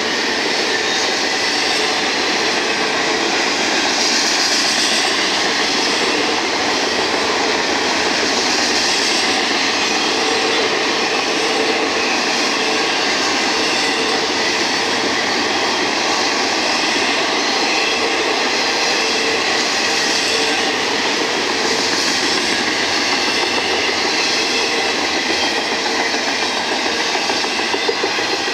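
Double-stack intermodal container cars of a fast Union Pacific freight train rolling past, a loud, steady noise of steel wheels on rail.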